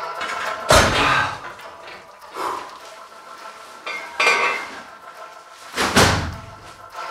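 Metal clanks and thuds from a cable pulley machine's weight stack and bar as a set ends and the weight is let down: four separate knocks, the loudest about a second in and about six seconds in, over faint background music.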